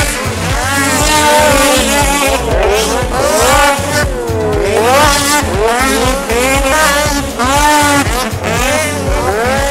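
Several snowcross racing snowmobiles' engines revving hard together, their overlapping pitches climbing and falling again and again as the sleds accelerate, back off and take jumps; about four seconds in, one engine drops low and then climbs back up.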